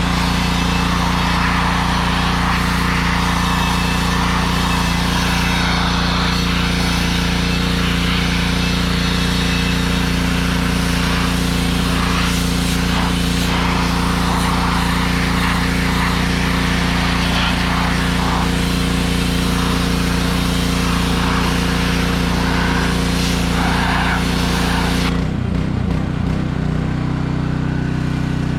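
Engine-driven pressure washer running with its sandblasting wand spraying: a steady engine note under a broad hiss. About 25 seconds in the spray stops abruptly and the engine keeps running, its note shifting briefly.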